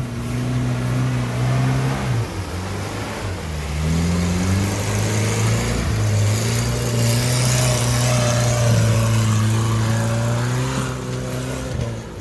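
UAZ Bukhanka van's engine working hard off-road. The revs dip about two seconds in, then climb and are held high, easing off near the end. A rushing noise joins it for a couple of seconds past the middle.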